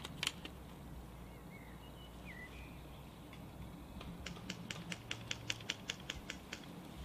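Airsoft gun firing: a pair of sharp shots at the start, then, after a pause, a steady string of about fifteen shots at roughly six a second, stopping a little before the end. A few faint bird chirps come in between.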